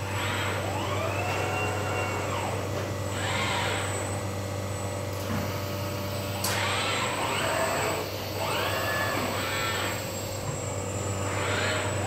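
Industrial robot arm's servo drives whining, the pitch rising and falling as the arm speeds up and slows through each move, four times over a steady low machinery hum. A single sharp click about six and a half seconds in.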